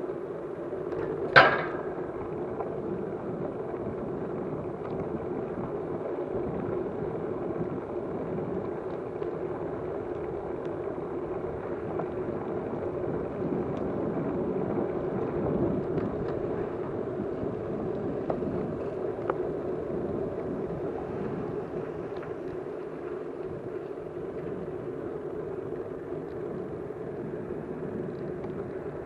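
Steady running noise of a moving vehicle, with one sharp click about a second and a half in.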